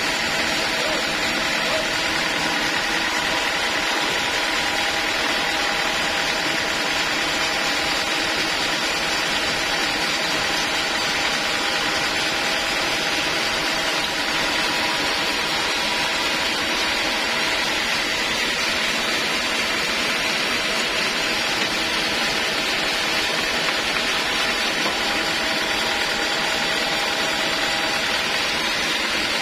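Portable bandsaw sawmill running steadily at a constant speed, its engine and spinning blade giving an even mechanical drone with a few steady whining tones.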